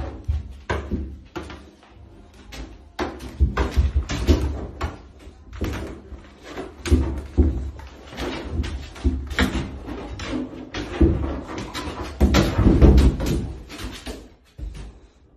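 Rottweiler puppy's claws scrabbling and its body knocking against the side of a bathtub as it clambers over the rim: a long run of irregular scrapes and thumps, the heaviest ones bunched together near the end.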